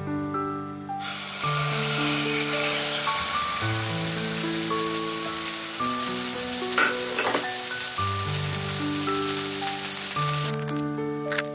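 Minced-meat hamburger patty sizzling in hot oil in a frying pan, the sizzle starting abruptly about a second in and cutting off near the end.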